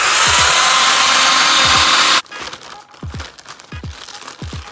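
A loud, steady rushing noise for about two seconds that cuts off suddenly, over music with deep bass kicks that fall in pitch, which continue after the noise stops.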